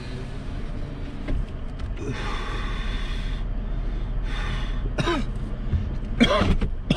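Pickup truck engine running at low trail speed, a steady low hum heard from inside the cab, with a brief hiss about two seconds in. In the second half a person coughs a couple of times.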